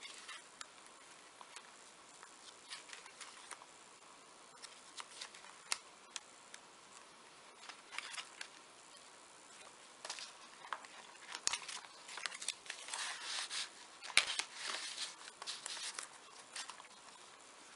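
Paper and card rustling and lightly tapping as a mini album's pages and a small fold-out booklet of cards are handled, opened and slid back into a paper pocket. The sounds are soft and come in scattered clusters, busiest in the second half.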